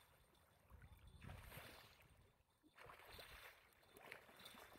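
Near silence, with faint water splashing and sloshing twice from a landed white sturgeon thrashing in shallow water at the bank.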